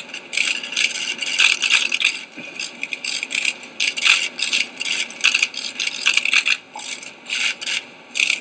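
Many camera shutters clicking rapidly and irregularly, overlapping from several cameras at once.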